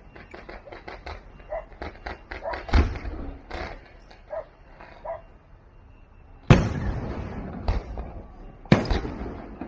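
Aerial fireworks: a quick run of sharp pops for about five seconds, then, after a short lull, three loud booms of shells bursting, about a second apart, each trailing off in a long echo.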